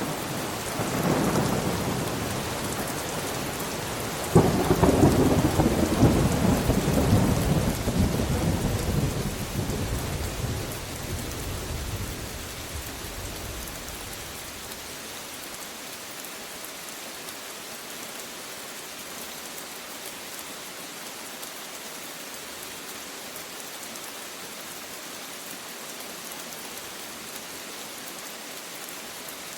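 Steady rain with thunder. A rumble builds at the start, a sharp clap comes about four seconds in, and the rolling thunder fades away over the next eight seconds or so, leaving only the rain.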